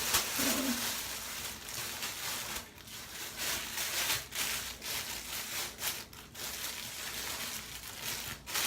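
Crinkling and rustling of a shower cap and bonnet being pulled on over hair, in irregular short bursts.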